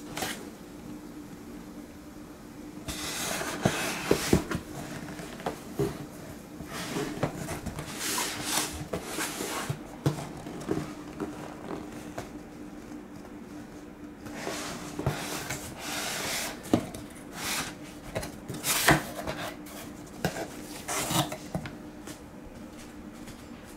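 Cardboard box being handled and opened by hand: flaps and box walls rubbing and scraping in several bursts, with scattered taps and knocks, over a steady faint hum.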